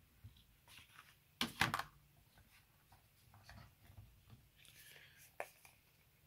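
Light handling noises of packaging being unpacked: paper and cardboard rustling with scattered small clicks and taps. The loudest clatter comes about a second and a half in, and a brief papery swish follows near the end.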